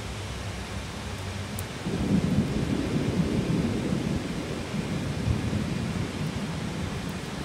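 Thunder rumbling over steady heavy rain: a low rumble swells about two seconds in and slowly dies away.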